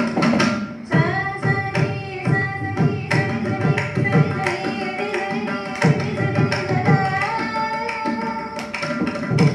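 A woman sings a Carnatic melody in held, gliding notes while playing the mridangam, whose strokes run steadily under the voice.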